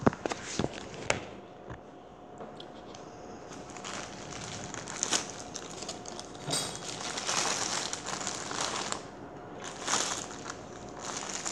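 Handling noise of a phone camera being carried and rubbed against shirt fabric: rustling and crackling that swells and fades, with a few sharp knocks in the first second or so.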